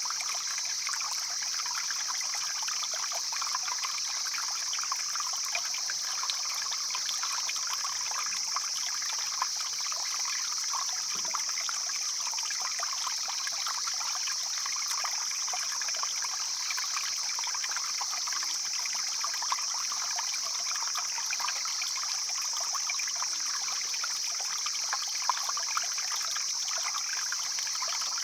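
A mountain stream flowing and trickling over stones, making a steady rushing babble with a few slightly louder splashes.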